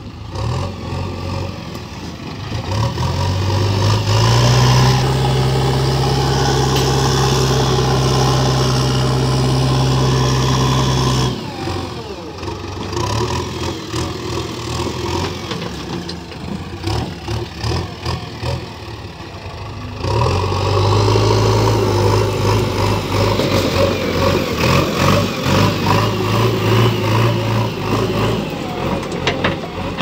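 JCB 3DX backhoe loader's diesel engine revving up and then running steadily at high revs under load. It drops suddenly about eleven seconds in, runs lower and unevenly for a while, then works hard again from about twenty seconds with a pulsing, uneven note.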